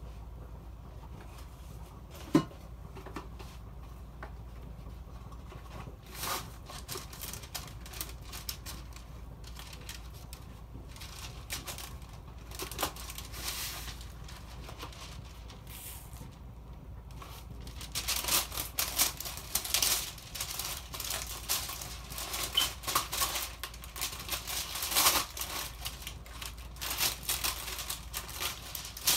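Food cooking under the closed lid of an electric grill, crackling and popping irregularly: a single sharp pop about two seconds in, then sparse crackles that grow thick in the last ten seconds, over a low steady hum.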